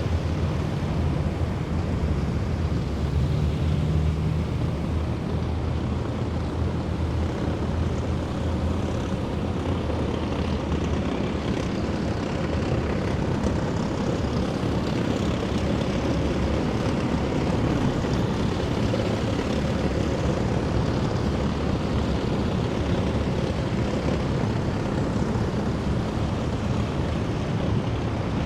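A column of heavy military vehicles driving past, their engines running in a steady low drone.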